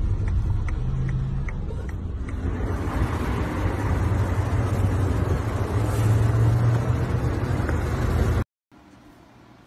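Car engine and road noise heard from inside a moving car in city traffic, with a light regular ticking over the first two seconds and the noise growing louder about two and a half seconds in. It cuts off abruptly near the end, giving way to a much quieter background.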